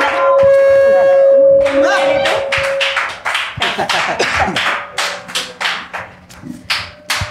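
Show music with a long held note that stops about three seconds in, under a small studio audience clapping in a loose, even rhythm that thins out and fades as the guests sit down.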